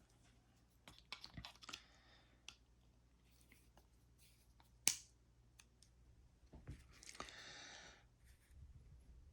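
Faint clicks and taps of metal channel-lock pliers being fitted onto and gripping a plastic lock cylinder, with one sharper click about five seconds in, then a brief breathy hiss as the twist is strained.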